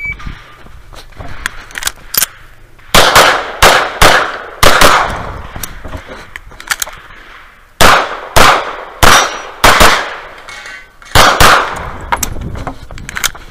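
Semi-automatic pistol fired at close range: about a dozen rapid shots in quick strings of two to four, starting about three seconds in, with a pause of about three seconds midway.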